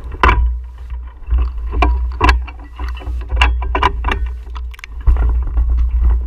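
Irregular crackles, snaps and knocks of dry brush and a mountain bike being pushed and lifted through it, over a steady low rumble of wind on the microphone.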